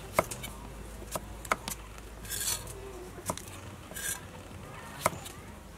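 Cleaver cutting cucumber on a wooden chopping block: about five sharp, irregular knocks of the blade striking the wood, with two short rasping sounds in between, near the middle and about four seconds in.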